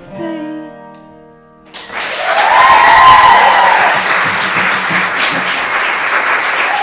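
The band's final chord rings out and fades. About two seconds in, the audience breaks into loud applause, with a whoop over it.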